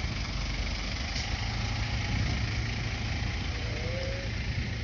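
Heavy decorated truck's engine running steadily at low speed, a continuous low rumble.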